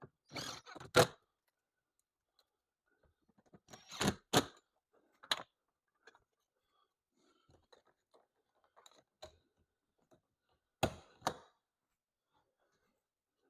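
Hand work on a car's plastic interior door trim during reassembly: several pairs of sharp clicks and knocks, about a second in, around four seconds in and again near eleven seconds, with a single knock between them.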